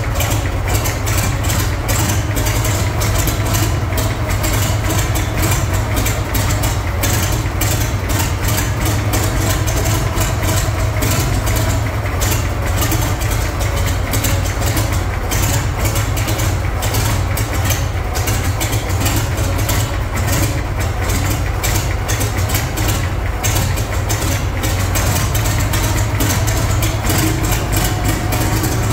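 Four-cylinder gasoline engine of a vintage Thirty crawler tractor idling steadily, a long-dormant engine running again after about 50 years.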